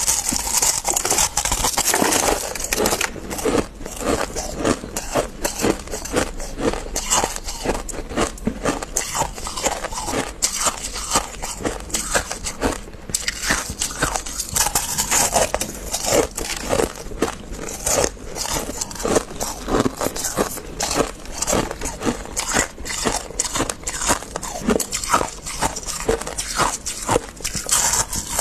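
Freezer frost crunching close up: a dense, continuous run of crisp crunches and crackles.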